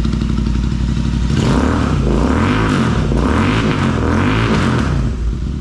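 Royal Enfield 650 Interceptor's parallel-twin engine through aftermarket S&S exhaust pipes, idling and then revved up and back down a few times before settling toward idle.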